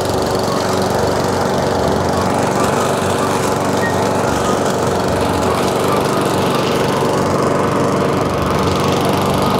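Murray walk-behind push mower's small petrol engine running steadily while its blade cuts through tall weeds.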